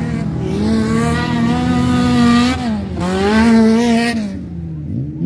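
Wreck-race car engine revving hard on a dirt track: the pitch climbs steadily, dips briefly about two and a half seconds in, climbs again, then fades away near the end.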